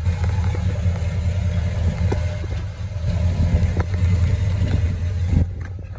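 1966 Pontiac Catalina's 389 V8 idling steadily, its low rumble heard from under the car through the single exhaust. The rumble gets quieter near the end.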